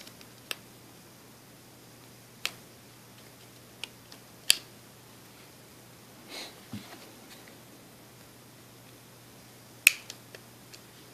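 Scattered sharp plastic clicks and snaps from a smartphone's housing and clips being pried apart by hand, with a short scrape about halfway through; the loudest snaps come about halfway in and again near the end.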